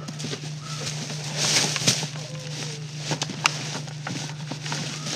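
Dry straw thatch rustling and scraping as a hand and rifle probe the eaves of a thatched hut roof, with scattered clicks of equipment and a steady low hum in the recording.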